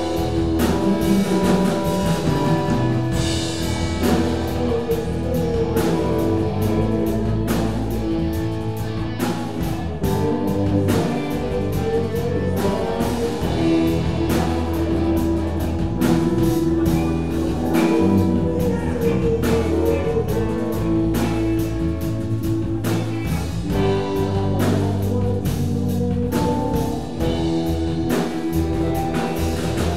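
Live band playing an improvised jam on electric guitars, electric bass, keyboard and drum kit.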